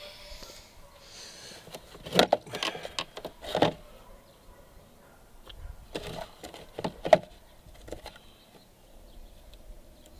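Hands handling hard plastic and metal parts while fitting an RC boat's radio box and pushrod boot: two clusters of sharp clicks and knocks, about two seconds in and again about six seconds in.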